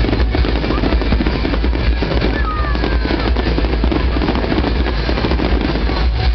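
Aerial fireworks bursting and crackling in quick succession over music playing with the show, with a constant low rumble underneath.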